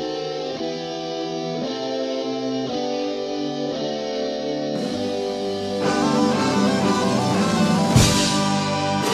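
Background music: guitar playing slow, held chords that grow fuller about six seconds in, with a cymbal crash near the end.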